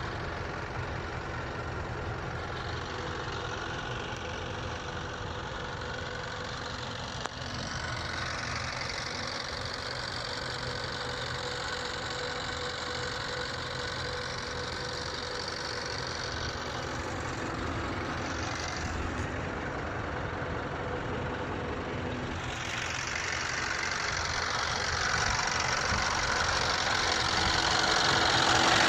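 Scania R560's V8 diesel idling steadily, growing louder near the end.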